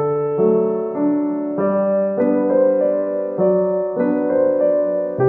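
Background music: a gentle piano tune playing chords that change about every half second.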